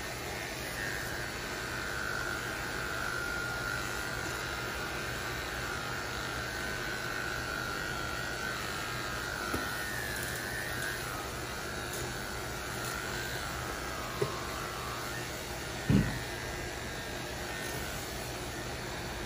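Electric dog grooming clipper buzzing steadily as it shaves a chow's coat, with a higher whine that wavers in pitch through the first two-thirds. Three short knocks break in, the loudest about three-quarters of the way through.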